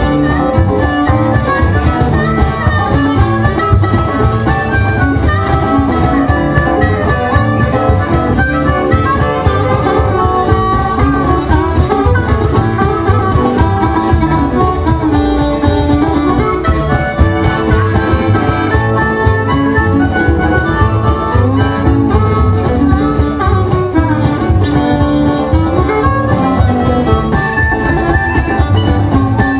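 Live acoustic band music: a harmonica playing lead over strummed acoustic guitar and a plucked upright double bass, at a steady beat.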